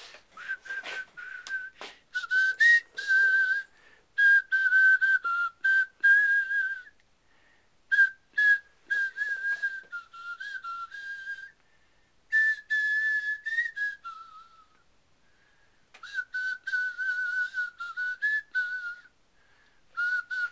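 A person whistling a tune, a single wavering note line moving through short melodic phrases with brief breaks between them.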